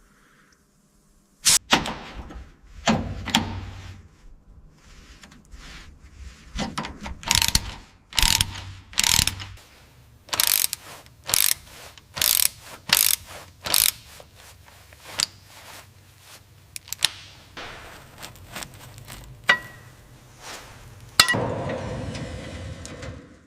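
Workshop tool noises on metal: a string of short clicks, clanks and rasps at irregular intervals, then a longer hissing burst near the end.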